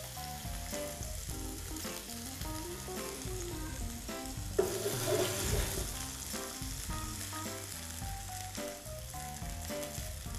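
Baby vegetables (carrots, radishes, romanesco florets) sizzling in oil in a nonstick frying pan as they brown, swelling briefly louder about halfway through. Background music with a simple melody plays along.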